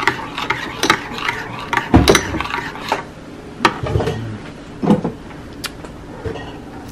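Metal spoon stirring a creamy salad dressing in a ceramic bowl, clinking against the bowl in a few irregular taps.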